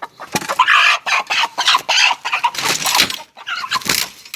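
Aseel chickens clucking and calling in a run of loud, quick bursts.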